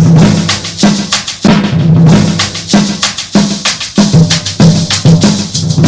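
A cumbia playing loud over a sound system. Drums and percussion keep a steady beat of a little under two strikes a second over a bass line.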